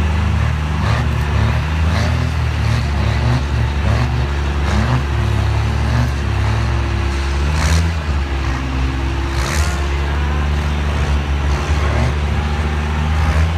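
Dodge Ram pickup's Cummins turbo-diesel inline-six under full load, pulling a sled down a dirt track. The engine note holds loud and steady, with only small wavers in pitch.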